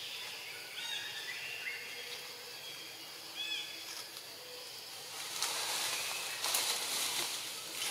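Outdoor ambience with a few short, high chirps in the first few seconds. About five seconds in comes a louder rustling of grass and dry leaves as young macaques scamper and leap through the undergrowth.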